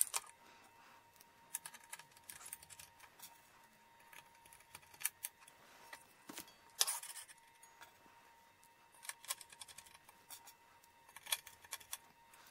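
Faint, scattered metallic clicks and scrapes as aluminium lamp-pole tubes are handled and small screws are driven into them with a little screwdriver.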